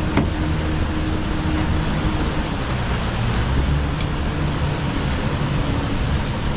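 Outboard engines of a SeaVee 32 center-console fishing boat running steadily at low speed, with a continuous low hum over a rush of wind and water.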